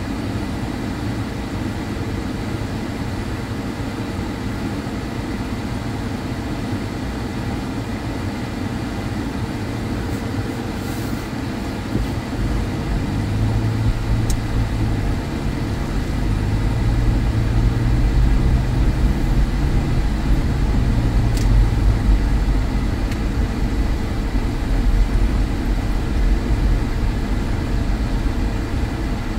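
Car cabin noise: a steady hum while the car sits at a light, then about twelve seconds in the car pulls away and a low engine and road rumble rises and keeps on as it drives over the snowy street.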